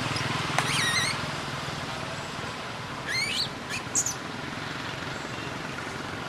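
Infant macaque giving short, high-pitched cries that rise and fall in pitch: one about half a second in, then two more around three to four seconds in, over steady background noise.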